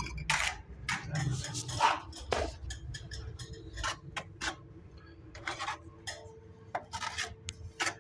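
Irregular sharp clinks and knocks of bricks and masonry tools being handled while laying a brick stove, a dozen or so hits spread unevenly, with a faint steady hum underneath.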